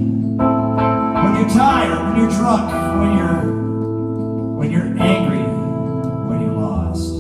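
Music: electronic keyboard chords held steadily, with a melody line wavering over them.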